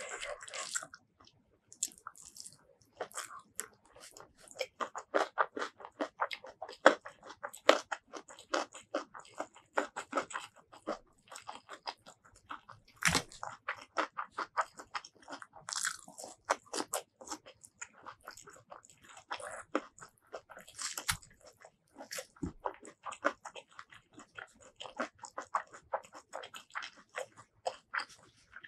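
Close-miked eating of rice with stink beans and boiled vegetables: crunching bites and wet chewing, many quick strokes in a row, with a few louder crunches.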